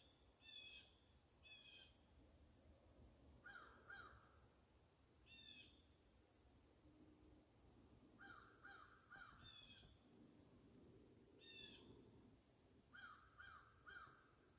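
Faint birds calling: short high notes every few seconds, with three runs of three lower notes in quick succession.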